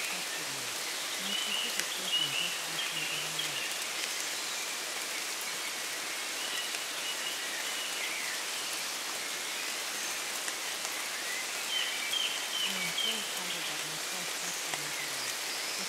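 Steady rain falling on a surface. A faint, low voice murmurs beneath it twice, about a second in and again about twelve seconds in.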